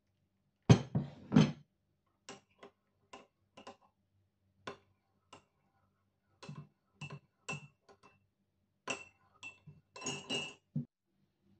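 Metal spoon stirring a drink in a ceramic mug, clinking against the inside wall: a louder knock and rattle about a second in, then a string of irregular ringing clinks that bunch together again near the end.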